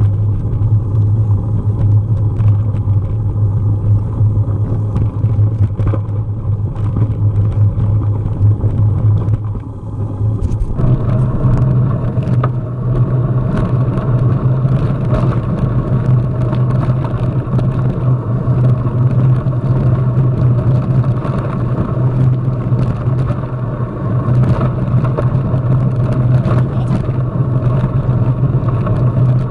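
A motor vehicle's engine running steadily at a near-constant pitch, which steps up slightly about eleven seconds in, with frequent small knocks and rattles over it.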